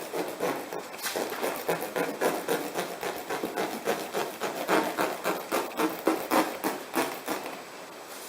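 A kitchen boning knife worked in repeated rasping strokes, about two to three a second, getting quieter near the end.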